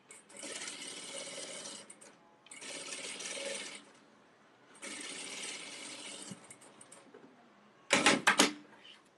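Industrial lockstitch sewing machine stitching a pant-leg hem in three short runs of about a second and a half each, stopping briefly between them as the fabric is guided. Near the end come a few sharp, loud clacks.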